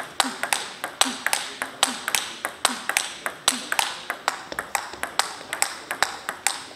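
Table tennis ball knocked back and forth in a rally, a steady run of sharp clicks of the celluloid ball off rubber-faced bats and the table top, about four or five a second.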